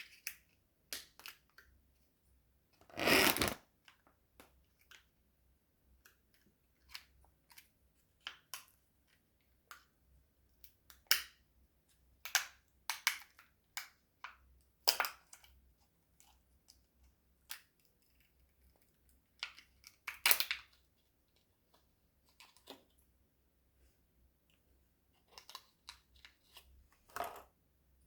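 Sweets being eaten: scattered small clicks and crackles of crunching and crinkling, with two louder crunching bursts, one about three seconds in and one about twenty seconds in.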